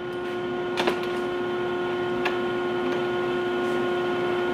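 Steady electric machine hum in a woodshop, with a few light knocks from the bandsaw circle-cutting jig's sliding bar being handled; the clearest knock comes about a second in, a weaker one about two seconds later.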